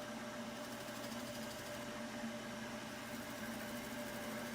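Wood lathe running steadily at speed, its motor giving a constant hum, with the freshly waxed birch bowl spinning.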